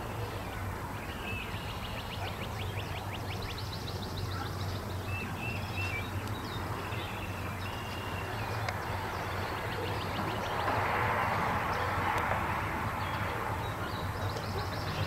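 Birds singing, with repeated short chirps and fast trills, over a steady low hum. A broad rush of noise swells for a few seconds about ten seconds in.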